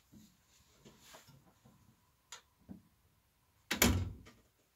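Light clicks and knocks from someone climbing into a tractor cab, with one loud thump about four seconds in; the engine is not running.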